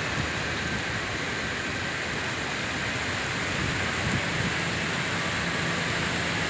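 Steady rain and strong wind before a typhoon, with gusts rumbling on the microphone.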